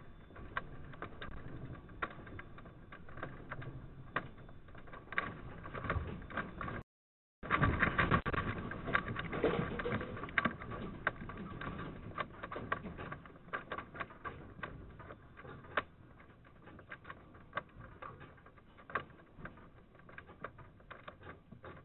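Dense rattling and clattering of metal laundry carts, fixtures and loose objects shaken by a magnitude 7.0 earthquake, heard through a security camera's thin-sounding microphone. After a brief dropout about seven seconds in, the clatter is at its loudest, then it slowly dies down to scattered clicks and knocks.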